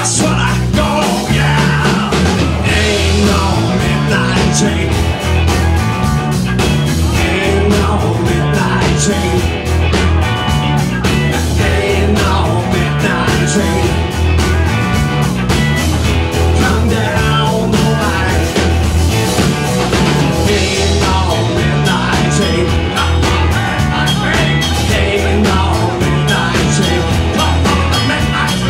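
Live blues-rock band playing: two electric guitars over drums, with a steady driving beat.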